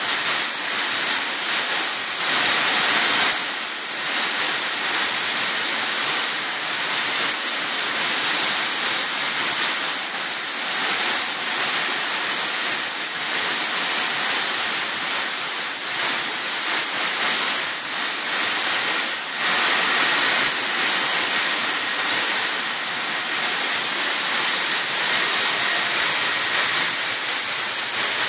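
Laser cutting machine running while cutting a clear acrylic sheet: a loud, steady rushing noise with a thin, high whine on top. The whine cuts out for about a second twice, once a couple of seconds in and again about two-thirds of the way through.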